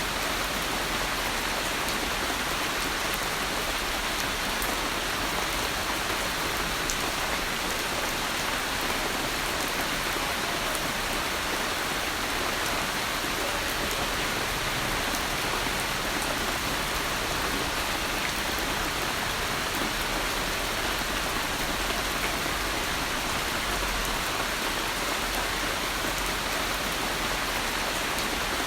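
Steady rain falling, an even hiss of drops with a few faint ticks of single drops landing.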